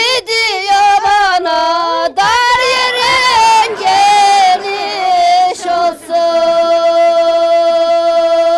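A woman singing a henna-night folk song in a high, ornamented voice with gliding pitch. About six seconds in she settles onto one long held note.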